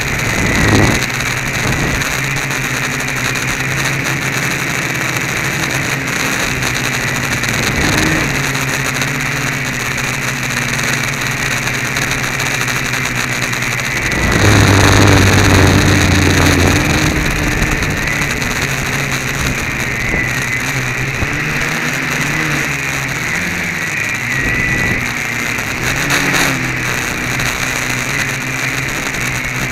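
The electric motors and propellers of a DIY 500-size quadcopter, heard from the camera mounted on it, running with a steady buzz whose pitch wanders as they speed up and slow down. The buzz gets louder for a few seconds about halfway through.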